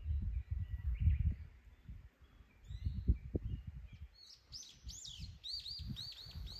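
A songbird calling in the woods: a few thin whistles, then in the last two seconds a quick run of chirps, about four a second. Under it, uneven low rumbling bumps on the microphone are the loudest sound.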